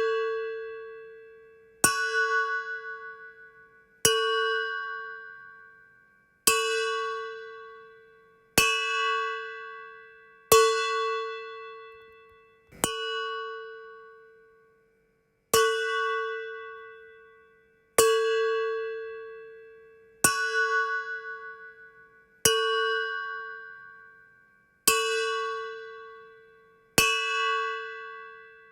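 A dark cinematic ding sound effect: a bell-like metallic tone struck about every two seconds, a dozen times in all. Each strike has the same pitch, rings out with a slight wavering and fades away before the next.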